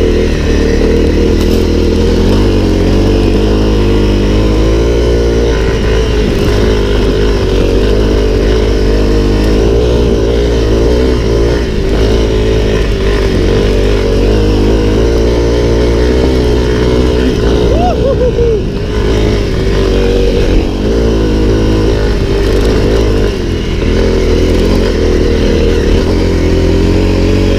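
Honda CRF250L's single-cylinder four-stroke engine running under way on a dirt track, its pitch wavering up and down with the throttle.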